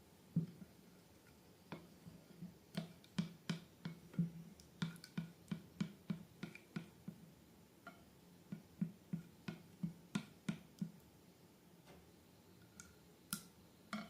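A run of soft, irregular clicks and taps, about two to three a second, from balloons and slime being handled.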